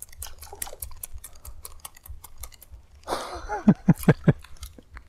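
Rapid, irregular ticking of a baitcasting reel being cranked while a surface lure is worked, with a short burst of louder, rougher sound about three seconds in.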